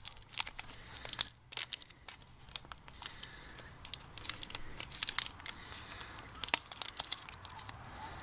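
Plastic wrapper being peeled and crinkled off a tubeless tyre repair plug: irregular crackles and short tearing sounds.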